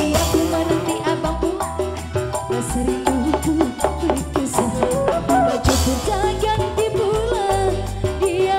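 Live band music with a woman singing into a microphone, over a hand drum beat, bass and electric guitars.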